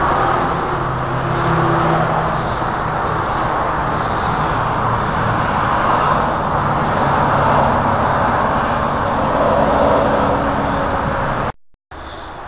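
A steady low hum with noise over it, dropping out for a moment near the end and quieter afterwards.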